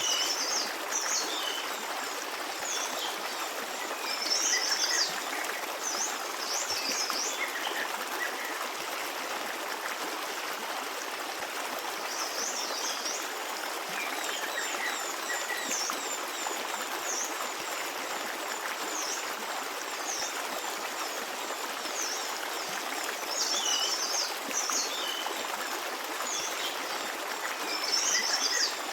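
Forest stream running steadily, with small birds chirping in short bursts of quick high notes every few seconds.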